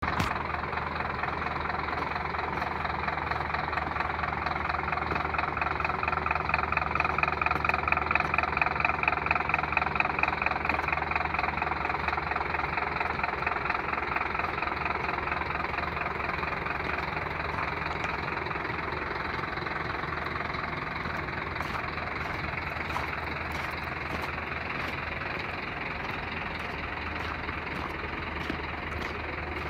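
Scania P270 truck's diesel engine idling steadily, a little louder for a few seconds about a quarter of the way in, then slowly fading.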